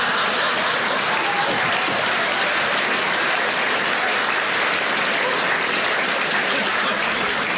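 Theatre audience applauding steadily after a punchline, with the clapping fading slightly near the end.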